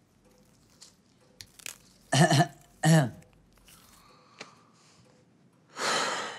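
Two short throaty vocal sounds from a person, about three-quarters of a second apart, like burps, followed near the end by a breathy rush of air.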